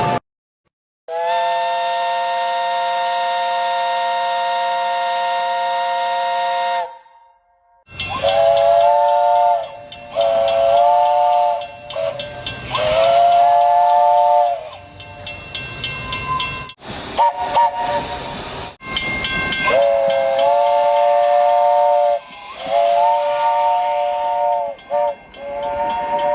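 Train chime whistle sounding several notes at once: one long steady blast, then after a short pause a series of shorter blasts, each sliding up in pitch as it starts.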